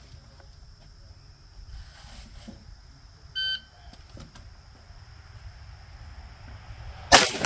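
Electronic shot timer gives one short beep about halfway through, the start signal after "stand by". Near the end a single loud rifle shot cracks and echoes off the range. Insects trill steadily in the background.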